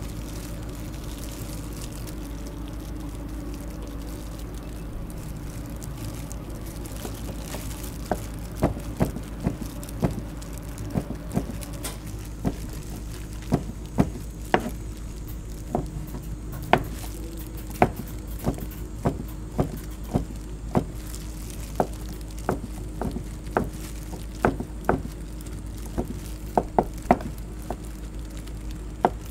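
Cooking utensils knocking irregularly, one or two sharp knocks a second, starting about a third of the way in, over a steady low kitchen hum.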